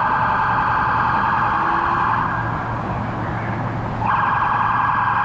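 An electronic warning buzzer sounding in long, even blasts: one of about two and a half seconds, a pause, then another starting about four seconds in, over a steady low hum.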